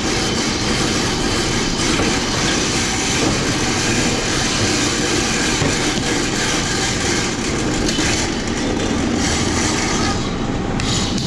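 Drum-type electric drain cleaning machine running steadily, its steel cable whirring and rattling as it is pulled out of a floor drain and back into the drum, after grease has been cleared from the line.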